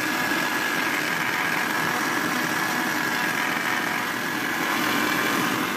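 Electric mixer grinder running steadily, its motor spinning the blades through a chocolate milkshake, with a constant high whine over the churning liquid.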